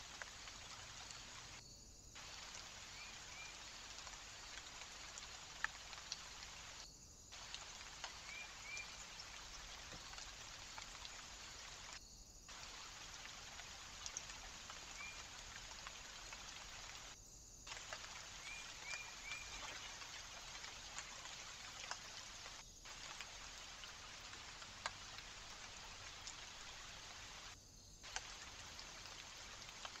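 Faint steady outdoor hiss with scattered light ticks and a few brief, faint bird chirps, cutting out for a moment about every five seconds where short recordings are joined.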